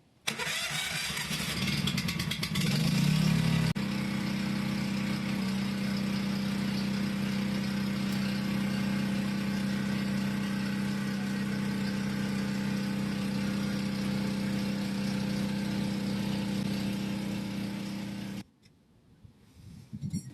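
Yamaha YT1070 snowblower's engine running. It is uneven for the first few seconds, then settles into a steady hum, and it cuts off suddenly near the end.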